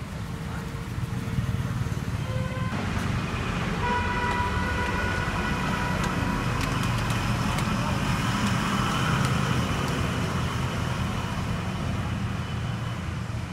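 Street traffic noise: a steady rumble of passing road vehicles. A held, steady pitched tone with overtones sounds over it from about three seconds in and lasts several seconds.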